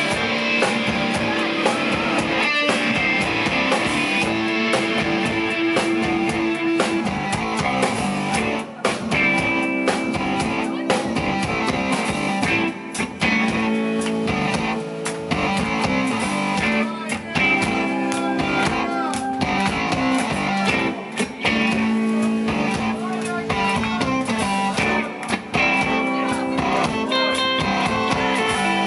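Live rock band playing an instrumental passage, with guitar to the fore over drums.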